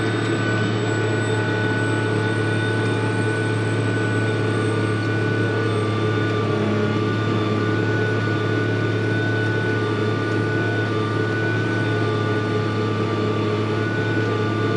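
Case IH MX285 tractor running steadily with its PTO-driven pull-type forage harvester (chopper) turning over as chopping starts, heard from inside the tractor cab: a low engine hum with a steady high whine over it.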